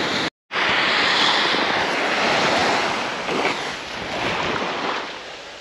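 Surf washing on a sandy beach, with wind on the microphone. The sound drops out for a moment just after the start, then grows fainter toward the end.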